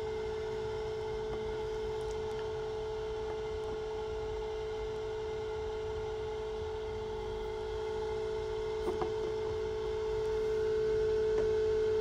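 Egg incubator running with a steady hum, one pitched tone with fainter overtones above it. A couple of light taps come about nine seconds in.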